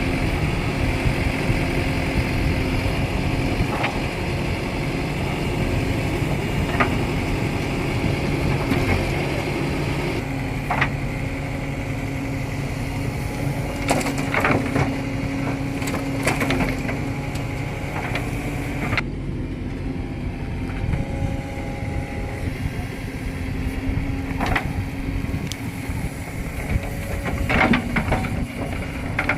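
Tata Hitachi Shinrai Prime backhoe loader's diesel engine working under load, with a few sharp clanks and knocks from the bucket and soil.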